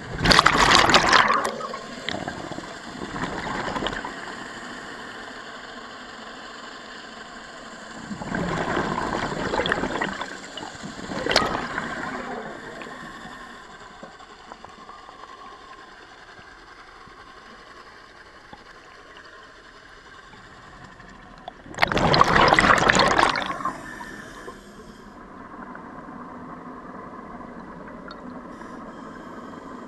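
Exhaled air bubbling from a scuba diver's regulator underwater, in bursts of a second or two: two near the start, two about a third of the way in, and a long one about three quarters through.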